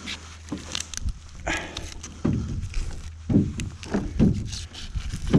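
A wet gillnet hauled by hand over a boat's aluminium bow: uneven bursts of splashing, dripping and rustling as the net comes out of the water.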